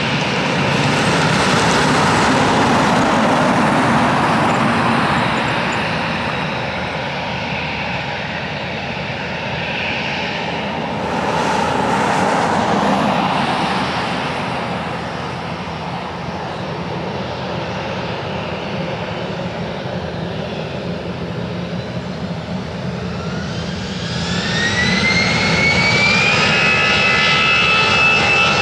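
Airbus A320's CFM56-5 turbofan engines running at low power as the jet taxis, then spooling up for the takeoff roll about 23 seconds in. A rising whine climbs and levels off into steady high tones near the end.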